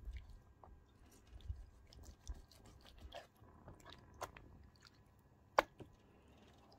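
Chef's knife cutting slashes into raw chicken thighs on a wooden chopping board, with soft wet slicing and handling of the meat and light knocks on the board. One sharper click comes near the end.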